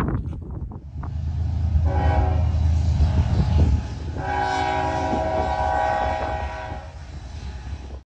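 Diesel locomotive air horn sounding two long blasts, each a chord of several notes, the first about two seconds in and the second about four seconds in, over a low rumble.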